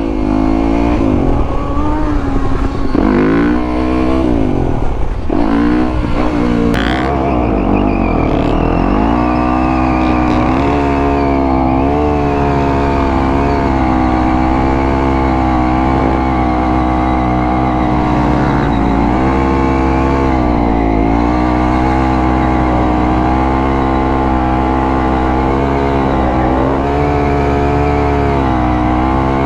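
Dirt bike engine revving up and down several times in quick succession, then running at a fairly steady pitch with a few brief dips in throttle.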